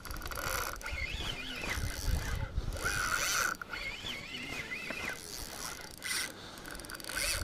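Savage Gear SG8 4000 FD spinning reel being cranked, its gears whirring as line winds onto the spool with the rod bent under the load of a hooked fish.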